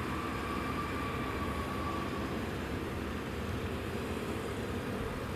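Steady rumble of a Boeing 777-300ER airliner, with a faint thin whine over it for about the first two seconds.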